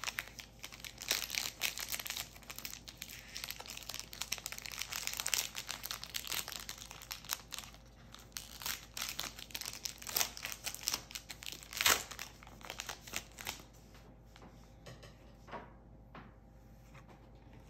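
Foil trading-card pack wrappers crinkling and tearing as a pack of football cards is ripped open by hand, with sharp crackles throughout. About fourteen seconds in it dies down to fainter, scattered rustling as the cards are handled.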